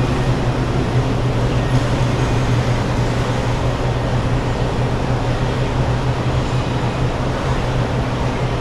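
Steady background hum of a large indoor hall: an even rushing noise with a constant low drone underneath, unchanging throughout.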